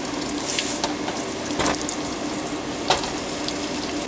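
Batter-coated, bacon-wrapped Twinkie deep-frying in hot grease: a steady sizzle with scattered crackles and a couple of sharper pops, over a faint steady hum.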